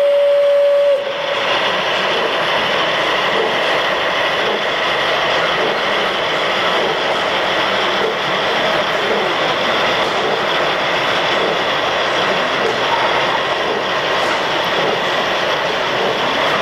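A model locomotive whistle holds one steady note and cuts off about a second in, followed by the steady running noise of a Gauge 1 model steam tank locomotive, a DB class 82, rolling along the track with its train.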